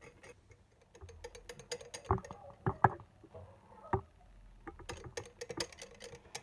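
Small wire whisk stirring rye flour and water into a sourdough starter in a glass jar: quick light ticking of the wires against the glass, with a few louder knocks about two, three and four seconds in.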